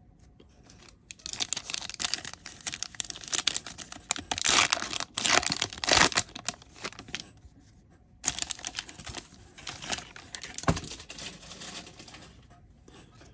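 Foil MetaZoo Seance booster pack being torn open and crinkled in the hands, in two spells of rustling with a short pause between them. A single sharp click comes near the end.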